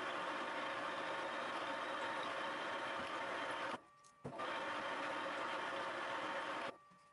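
Thiel Duplex 158 milling machine running steadily while a twist drill bores into a cast iron (GG25) workpiece. The sound cuts out briefly about four seconds in and again near the end.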